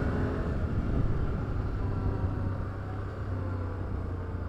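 Can-Am Outlander ATV engine running steadily at riding speed on a gravel road, a continuous low drone.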